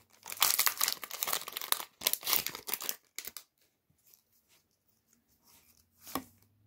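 Foil booster-pack wrapper crinkling and tearing as it is pulled apart, in two loud stretches over the first three seconds. After that only faint rustles, with a single short tap about six seconds in.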